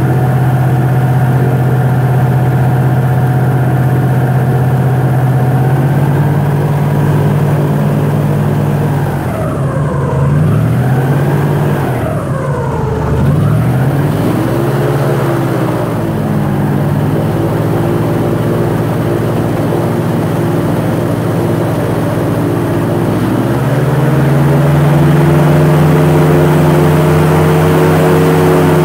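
Airboat engine and propeller running at a steady pitch; a few times in the middle the pitch dips and swings back up, and near the end the throttle opens to a higher, slightly louder steady note.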